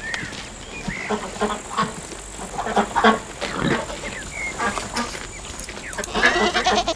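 Farmyard animals calling, goats bleating among them, in short separate calls that come thicker near the end.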